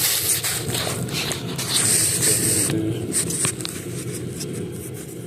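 Scraping and rustling handling noise with scattered clicks, from hands and parts being moved around the engine's ignition coils. It is loudest through the first half and quieter after about the middle.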